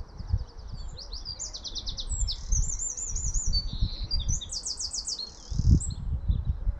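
European robin singing: a run of quick, high, trilled and warbling phrases one after another, with a low irregular rumble underneath.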